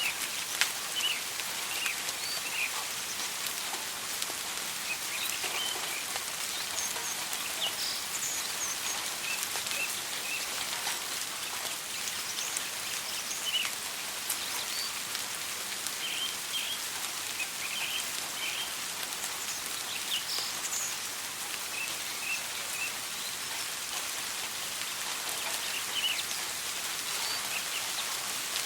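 Steady rain falling, an even hiss with occasional sharper drop taps, while birds give short, scattered chirps throughout.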